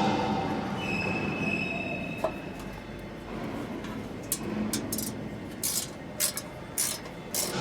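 Steady workshop machinery noise with a brief high metallic squeal about a second in, then a run of short hissing bursts in the second half.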